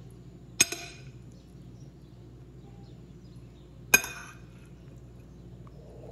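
A metal spoon clinks twice against a ceramic plate, about three seconds apart, as chicken filling is scooped. Each clink is sharp and briefly ringing.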